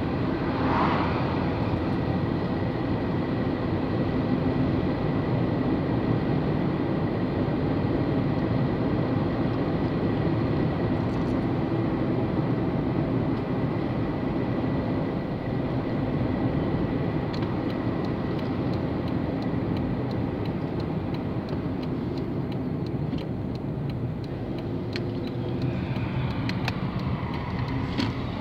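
Steady road and engine noise heard inside a moving car's cabin, with an oncoming car swishing past about a second in.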